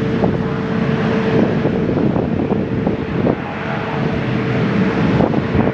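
Jet engines of a Boeing 787-8 airliner running at taxi power as it rolls past, a steady rumble with a hum, mixed with wind on the microphone.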